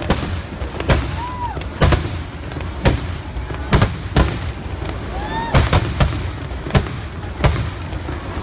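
Kerala vedikettu fireworks going off: a rapid series of loud, sharp bangs, about a dozen in eight seconds, some coming in quick pairs.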